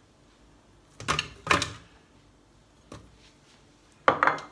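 Frozen banana chunks tipped from a small ceramic bowl, clunking into a stainless steel food-processor bowl in two drops about half a second apart. Just after four seconds in, the empty ceramic bowl is set down on the worktop with a sharp knock.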